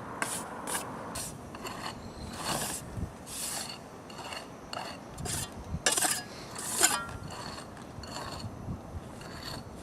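Repeated rasping scrapes, about one to two strokes a second and uneven in strength, with faint squeaks between them.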